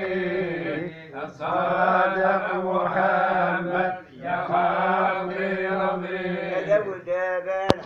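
Male chanting of a devotional refrain praising the Prophet Muhammad, in long, drawn-out held phrases that break briefly about one and four seconds in. A single sharp click sounds near the end.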